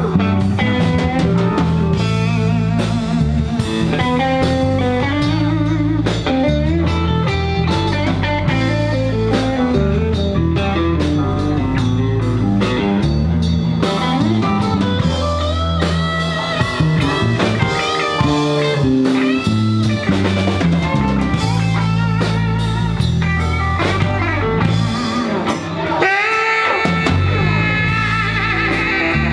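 Live blues band playing, with electric bass and drum kit under a wavering melody line. A saxophone comes in near the end.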